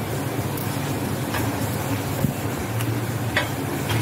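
A steady low hum with a hiss runs throughout. A few light clicks come as dried red chillies are dropped into a steel mixer-grinder jar of grated coconut.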